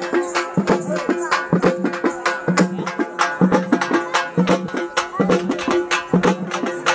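Folk music with fast, rhythmic drum strikes over a steady held tone, played without a break.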